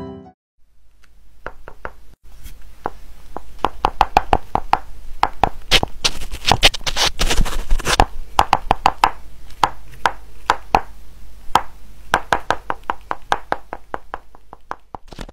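Rapid, irregular clicking and tapping, several clicks a second, growing busier toward the middle and thinning out near the end.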